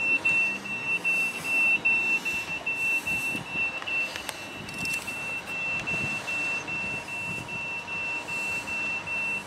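An electronic warning beeper on a motor yacht sounding quick, evenly spaced, high-pitched beeps without a break, over a faint steady background noise.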